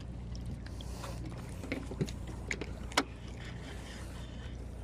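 A steady low mechanical hum, with several short clicks and knocks scattered through it; the sharpest knock comes about three seconds in.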